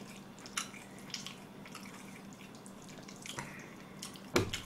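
Faint wet clicks and smacks of thick Chinese-style noodles in curry sauce being stirred and lifted with chopsticks, a few small sticky sounds a second, with one louder click near the end.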